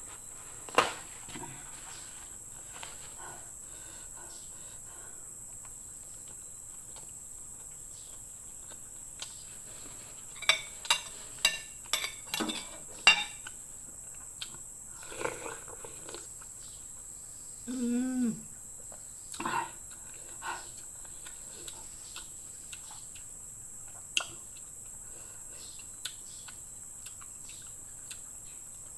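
Eating sounds at a meal: scattered sharp clicks and clinks of utensils and dishes, with a quick run of several of them a little after ten seconds in, and a short hummed voice sound partway through. A steady high-pitched hiss lies underneath throughout.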